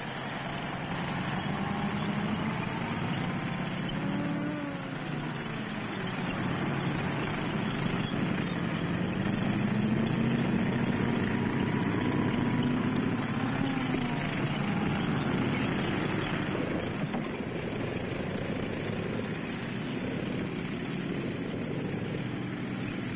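Heavy engines running with a rough, steady noise, their pitch sliding up and down several times.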